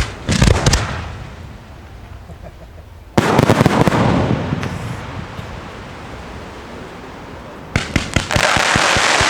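Fireworks going off: a few quick bangs, then a loud blast about three seconds in whose rumble fades over several seconds, then a rapid run of bangs near the end turning into dense crackling.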